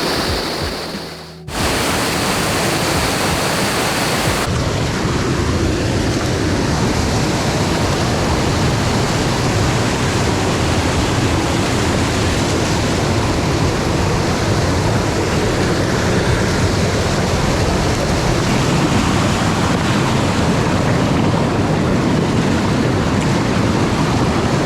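Steady rushing of a mountain stream pouring over waterfalls and rocks. It dips briefly about a second in and returns, and from about four seconds on its hiss sounds duller.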